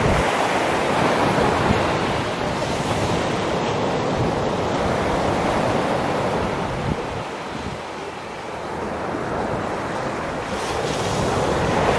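Ocean surf breaking and washing up a sandy beach, a steady rush of water that eases a little about two-thirds of the way through, with wind buffeting the microphone.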